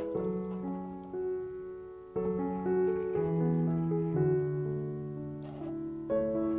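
Background piano music, a slow melody of held notes. A single sharp click right at the start.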